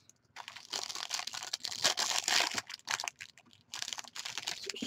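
Clear plastic packaging crinkling and rustling as trading cards and their wrapping are handled, with many small crackles and a short pause about two thirds of the way through.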